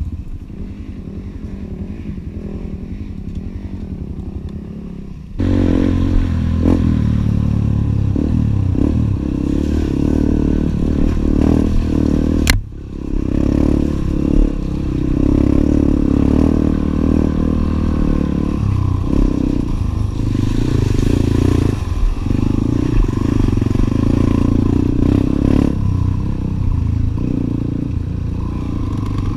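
Enduro dirt bike engine running along a trail, its level shifting as it goes. It gets markedly louder about five seconds in, and a single sharp click cuts through a little before halfway.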